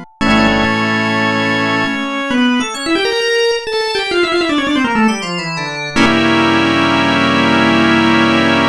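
A Samsung Anycall SCH-E100 ringtone played back as a synthesized MIDI melody, with a falling run of notes midway and a held chord at the end.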